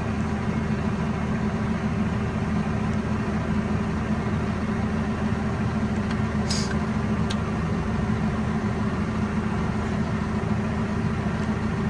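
Massey Ferguson 5S.145 tractor's four-cylinder diesel engine running steadily, with a couple of brief clicks about six and seven seconds in.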